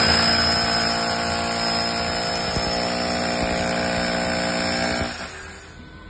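Corded Bosch SDS-plus hammer drill boring a pilot hole into breeze block, running steadily at full speed and stopping about five seconds in.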